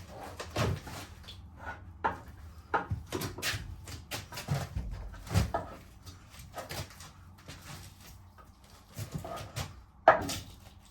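Irregular knocks and clatters of timber battens being handled and fixed to the boat's walls, with the loudest knock near the end.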